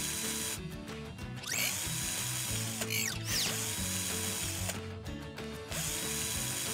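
Cartoon power screwdriver whirring in several short bursts with mechanical whooshes as a robotic arm drives screws into the plastic pipe joints of a goal frame, over background music.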